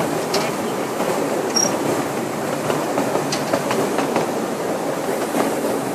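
Steady rumble and clatter of a 1-foot-gauge miniature railroad's riding cars rolling along the track, with scattered clicks from the wheels on the rails. A brief high wheel squeal comes about a second and a half in.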